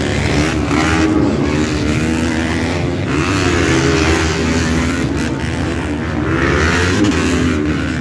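250cc four-stroke motocross bike engines racing, revving hard with their pitch rising and falling as the bikes take a jump.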